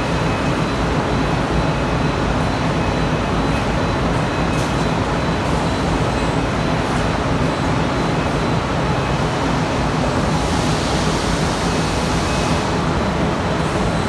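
Steady, loud running noise of a Bobst DRO rotary die-cutter line and its Emepi palletizer handling corrugated board, with a faint high whine, a few light clicks, and a brief rise in hiss about ten seconds in.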